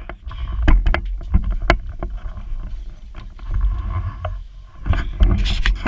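Irregular knocks and clicks from handling things inside a cabinet, with a low rumble of handling noise and a louder cluster of knocks near the end.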